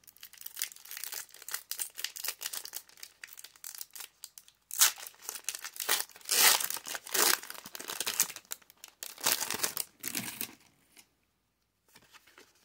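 Foil wrapper of a Pokémon booster pack crinkling in the hands and being torn open, with the loudest rips between about five and ten seconds in.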